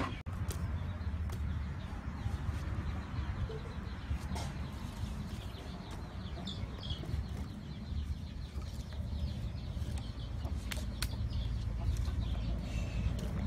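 Chickens clucking over a steady low rumble, with a few sharp clicks of firewood sticks being pushed into a smoking wood-burning stove about eleven seconds in.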